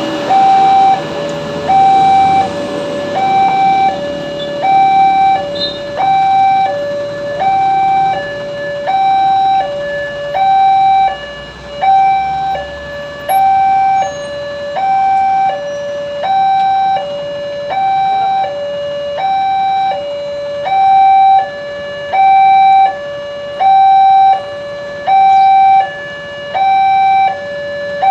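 Electronic level-crossing warning alarm at a railway crossing, sounding a steady alternating two-tone high-low signal at about one cycle every second and a half. The alarm signals an approaching train and the closing barrier. A passing vehicle rumbles faintly near the start.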